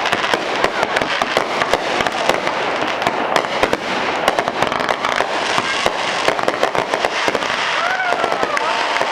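Aerial fireworks bursting in quick succession: a dense, unbroken run of sharp bangs and crackling.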